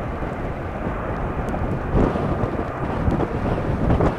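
Boeing 767-300 airliner's jet engines giving a steady low rumble, with gusts of wind buffeting the microphone.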